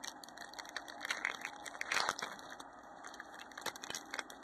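Foil wrapper of a Pokémon trading-card booster pack being handled and torn open: irregular crinkling and crackling, with a louder crackle about two seconds in.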